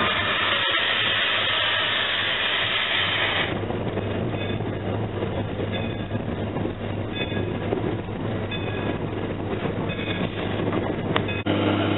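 Louisville and Nashville No. 152 steam locomotive running, heard from inside its cab. A loud steady hiss stops abruptly about three and a half seconds in, leaving a quieter running noise with faint high squeals coming and going.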